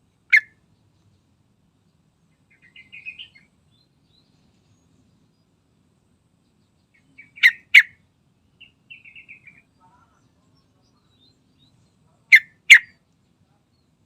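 Yellow-vented bulbul (trucukan) calling: a single short, loud call, a soft run of twittering, then two pairs of loud calls, with another soft twittering run between the pairs.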